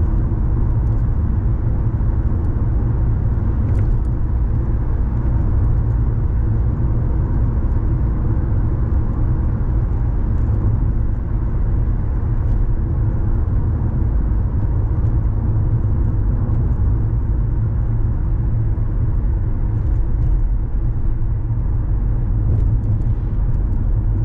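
Steady low rumble of a car driving along a road: engine and tyre noise, unchanging throughout.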